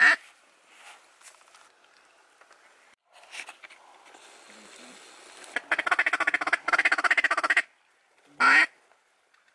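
Hand-blown duck call sounding quack-like notes to ducks circling overhead: a few faint calls, then a loud fast chattering run for about two seconds, and a single loud quack near the end.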